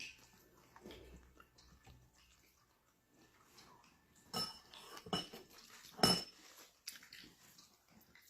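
Cutlery clinking against a dish: three sharp, ringing clinks about a second apart in the second half, between softer clicks and eating noises.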